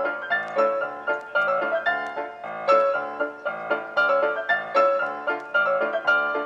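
Background piano music: notes struck at an even, fairly quick pace, each ringing briefly and fading.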